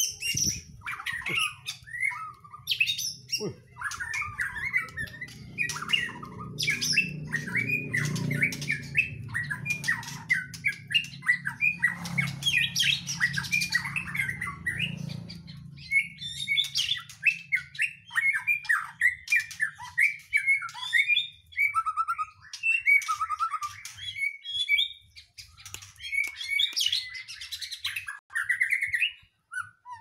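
Caged white-rumped shama (murai batu) singing a fast, unbroken stream of varied whistles, chirps and harsher squawking notes. A low hum sits underneath from about four seconds in until about halfway.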